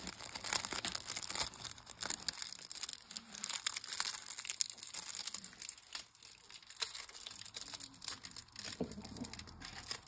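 Crinkling and crackling of a clear stamp set's plastic packaging being handled, with irregular small clicks.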